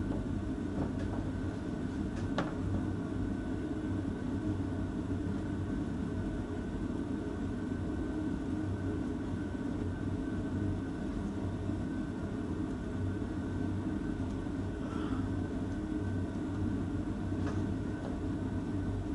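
Steady low mechanical rumble with a few faint clicks and taps.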